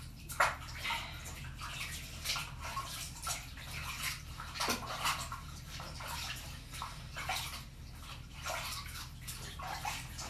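Water splashing and sloshing in a plastic basin as a hand scoops and rubs it over a chicken's soaked feathers, rinsing her in a bath. The splashes come irregularly over a steady low hum.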